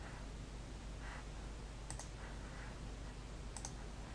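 Two computer mouse clicks, about two seconds in and again near the end, each a quick double tick of press and release, over a faint steady hiss and low hum.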